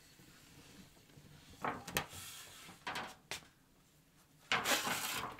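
Wooden bread peel knocking and scraping against the brick hearth of a Russian stove as a baked loaf is drawn out: several short knocks, then a longer scrape near the end.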